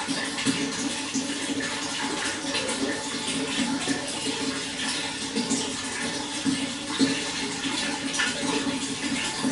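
Running water flowing steadily, with small splashes and gurgles scattered through it.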